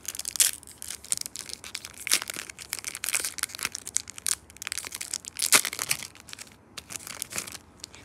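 Foil wrapper of a Pokémon booster pack crinkling and tearing as it is handled and ripped open, in irregular crackles that die down near the end.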